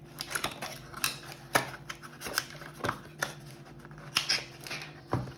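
Irregular sharp clicks, snaps and scrapes of a knife's plastic retail packaging and box being cut and pried open by hand, over a faint steady low hum.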